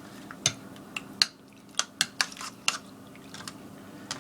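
Liquid dripping in short, uneven drips, about nine in four seconds, over a faint steady hum.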